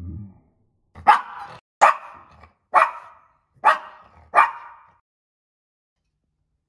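Maltese dog barking five times in quick succession, sharp barks a little under a second apart, then falling silent: alert barking at cats outside.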